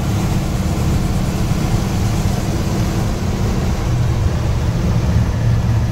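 1971 Ford F100's 302 V8 engine and road noise heard from inside the cab, a steady low drone while cruising at an even speed.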